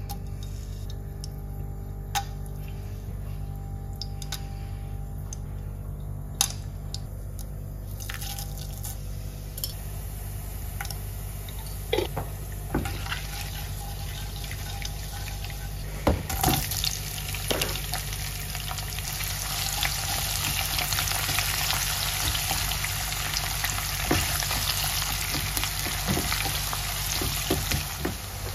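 Whole spices sizzling in hot oil in a nonstick kadai, with scattered clicks of spices dropped in and a silicone spatula knocking the pan. About sixteen seconds in, chopped onions go into the oil and the sizzling jumps to a loud, steady frying hiss as they are stirred.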